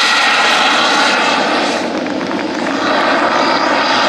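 Turbine engine of a large radio-controlled Panavia Tornado jet model in flight: a steady, loud jet whine and rush that dips briefly about halfway through.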